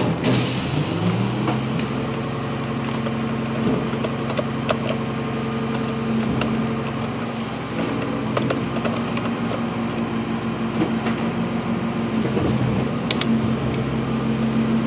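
Truck engine sound: the engine revs up during the first second or so, then runs steadily with a low hum. Light plastic clicks from a toy trash cart being tipped into a diecast rear-loader's hopper sound over it several times.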